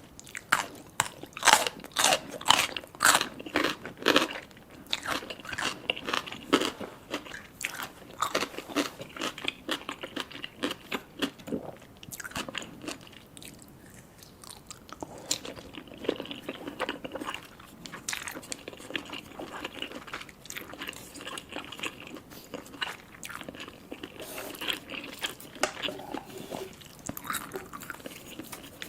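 Close-miked eating of Buldak ramen with fish balls and mini sausages. Crisp bites and crunches come quickly in the first few seconds, then softer, irregular chewing.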